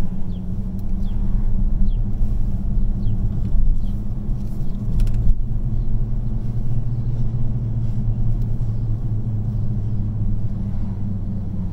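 Steady low rumble of a car's engine and tyres while driving along a city street at low speed, heard from inside the cabin. There is a brief faint click about five seconds in.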